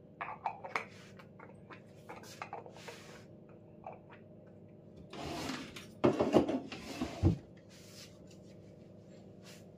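Handling noises: small clicks and taps from a cream jar being handled, then about five seconds in a louder two-second stretch of rustling with several sharp knocks.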